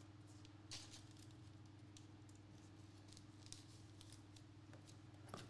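Near silence: a few faint clicks and rustles of trading cards being handled and set down on a mat, over a steady low electrical hum.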